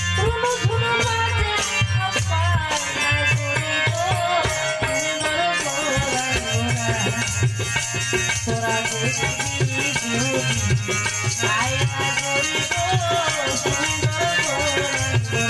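Bengali Baul folk music: a voice singing a wavering melody over steady drum and shaker percussion, played loud through a sound system.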